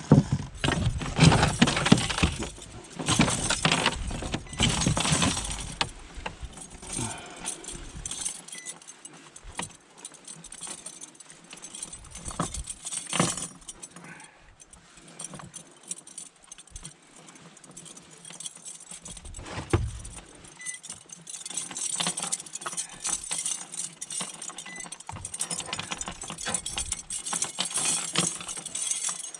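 Light clinking and rustling close to the microphone from fishing tackle being handled, busiest in the first six seconds, then scattered small clicks and a couple of louder knocks.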